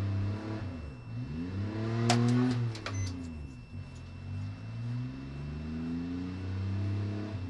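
Truck engine revving hard in long rising and falling surges as its wheels spin in place, the truck stuck on the railroad tracks. A cluster of sharp ticks about two seconds in.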